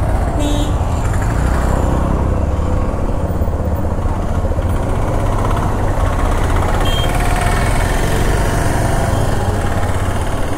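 Motorcycle engine running while riding slowly through traffic, with steady road and wind noise over the rumble.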